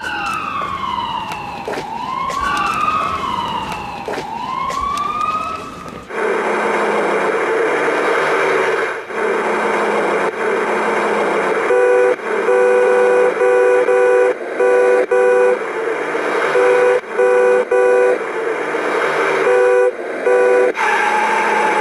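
Emergency vehicle siren wailing in rising and falling sweeps. About six seconds in it gives way to steady traffic noise, and from about halfway through a horn sounds in a long series of short blasts.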